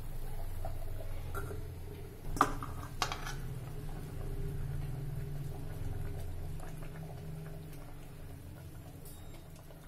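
Steel ladle clinking sharply twice against a steel bowl, about half a second apart, as fish curry is ladled out of a clay pot, over a low steady hum.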